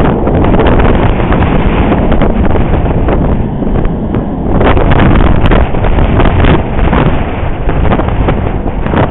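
Strong wind buffeting the camera's microphone, a loud, gusty rumble that rises and falls throughout.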